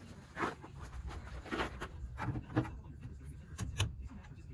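Irregular knocks, scrapes and clunks of metal suspension parts and tools being handled, with a few sharp clicks near the end.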